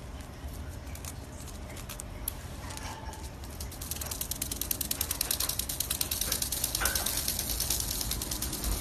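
Black-headed caique handling a strip of clear plastic with its beak: a fast, even run of clicks that starts a few seconds in and grows louder.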